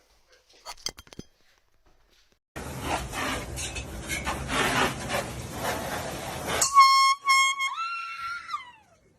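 A loud, dense noisy burst lasting about four seconds, cut off by a reedy horn tone. The horn sounds a few short pulses, then holds a slightly higher note, then slides down in pitch as it dies away.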